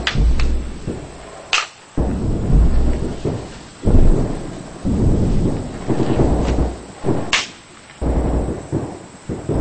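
Sound-effects track of deep rumbling booms like thunder, one after another, each a second or two long. Sharp high cracks come near the start, a second and a half in, and again near the end.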